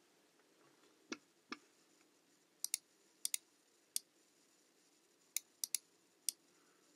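Keys being pressed one at a time on a computer keyboard: about a dozen separate, faint clicks, some in quick pairs, at an unhurried, irregular pace.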